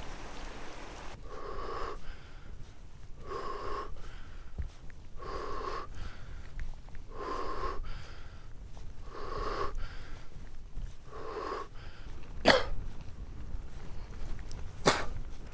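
A person breathing heavily and rhythmically, one rasping breath about every two seconds, six in a row. Two sharp clicks or knocks follow near the end.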